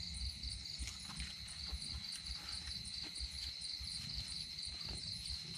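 Night insects trilling steadily in a continuous high, pulsing chorus, with faint rustling of banana leaves being folded by hand.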